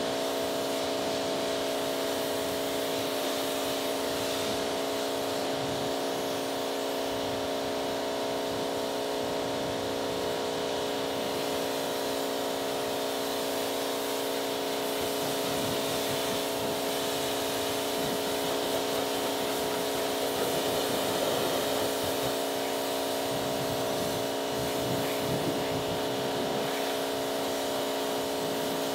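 Pressure washer spraying water onto a car's paint and glass: an even hiss of spray over the machine's constant hum.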